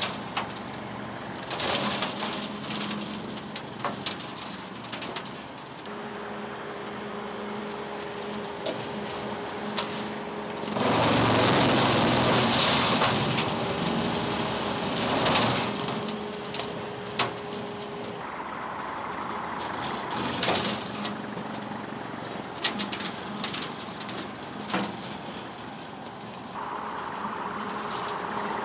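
TYM tractor engine running steadily as it works through the fence row, with scattered sharp cracks and knocks. In the middle there is a louder rushing stretch of several seconds.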